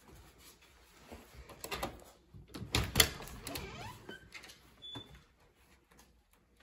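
Front door being unlatched and pulled open: handle and latch clicks, with the loudest knock about three seconds in, then a couple of brief high squeaks as the door swings.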